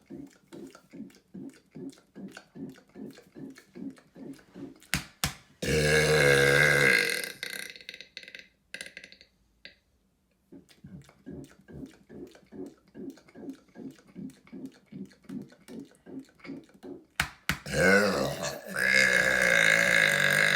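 A man burping on purpose. There are two long, loud, drawn-out burps, one about six seconds in and one starting near the end. Each is preceded by a run of short, quick throat sounds, about three a second.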